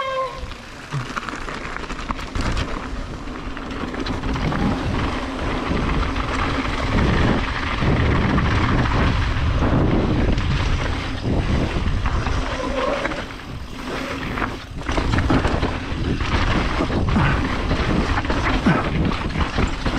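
Ride noise of a mountain bike descending a bumpy dirt trail: wind rushing over the camera microphone, tyres on loose dirt, and the bike knocking and rattling over bumps throughout.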